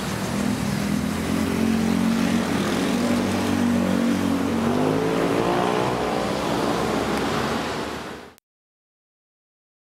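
Train moving through a station behind steam locomotive DT668: a steady hiss and rumble with a pitched engine-like note that rises in pitch about halfway through. The sound fades out to silence near the end.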